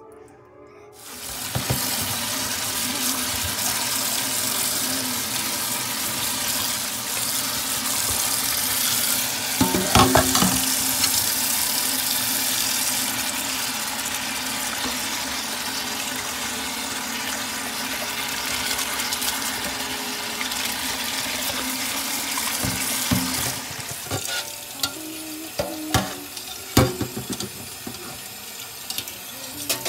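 Kitchen tap water running steadily onto a plate in a stainless steel sink, starting about a second in. A few light knocks of dishware against the sink, about ten seconds in and again near the end.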